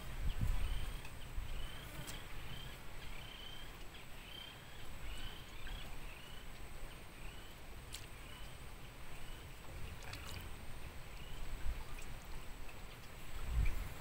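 Quiet open-air river ambience with a low rumble, and a run of short high chirps, about two a second, through the first half.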